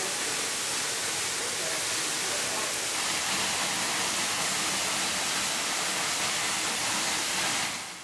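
Steady rushing hiss of water pouring over Sweden Creek Falls, fading out near the end.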